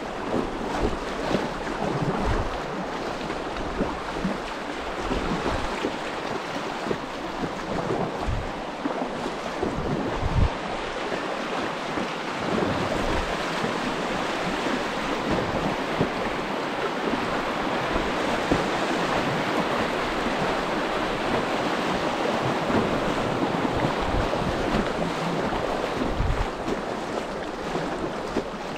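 Steady rush of creek water moving around a kayak. Wind gusts on the microphone now and then in short low thumps.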